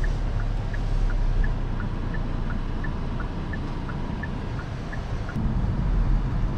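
Inside the cabin of a moving Kia Forte GT, its turbocharged four-cylinder and the road make a steady low rumble. A turn signal ticks about three times a second. The ticking stops about five seconds in, and the rumble then grows louder as the car pulls away.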